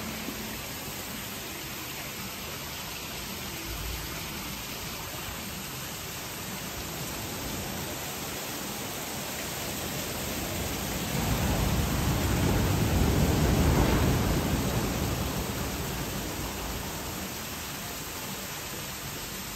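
Steady rush of ocean surf breaking on the shore, swelling louder for a few seconds just past the middle.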